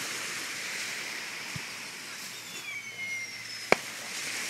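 A firework bursts with one sharp bang about three and a half seconds in, just after a high whistle that falls slightly in pitch. A fainter pop comes earlier, over a steady hiss of surf.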